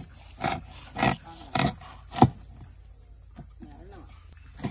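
A large curved chopping knife cutting through fish onto a wooden chopping block, four sharp chops about half a second apart, the last one the loudest.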